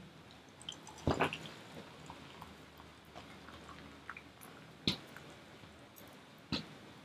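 Coffee poured in a thin stream from a stainless steel camp percolator into a mug, faint. Three sharp clicks come through: about a second in, near five seconds, and near the end.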